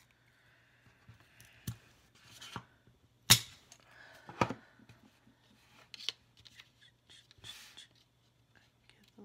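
Wooden craft sticks being cut with scissors: several sharp snaps as the blades crack through the wood, the loudest about three seconds in, with softer taps and rustles of sticks and paper on a table between them.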